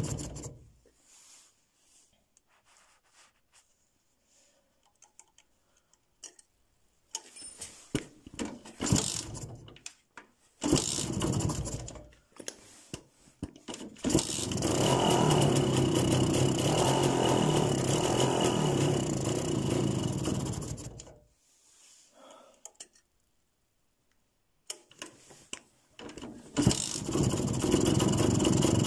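Jawa ČZ 150 single-cylinder two-stroke engine, fitted with a transparent cylinder head, running in fits: it stops just after the start, fires in short uneven sputters, runs steadily for about seven seconds, dies out, then sputters and catches again near the end.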